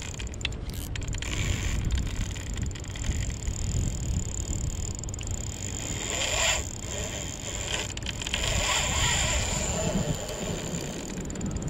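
Spinning reel being cranked, its gears whirring and clicking as line is wound in, over a steady low rumble.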